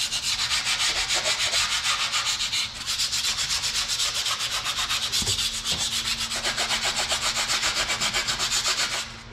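Fast back-and-forth scraping against the rusty underside of a car's rocker panel, about five strokes a second, rubbing loose surface rust to collect. It stops abruptly near the end.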